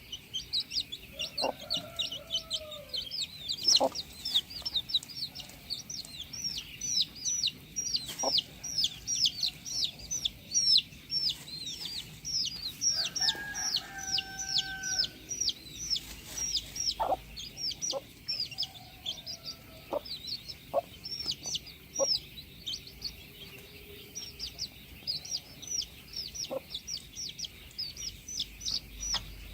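Chickens clucking, with a longer crowing call twice, over a constant rapid high chirping of small birds or chicks.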